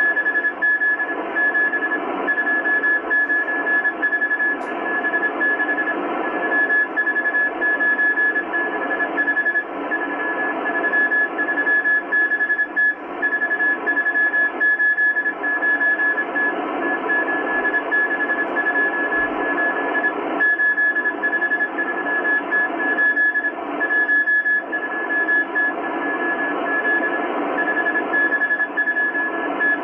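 Shortwave Morse code from the M12 Russian spy station on 14951 kHz: a single high tone keyed on and off in dots and dashes, sending a coded message, over steady hiss and static from a Kenwood R-1000 communications receiver.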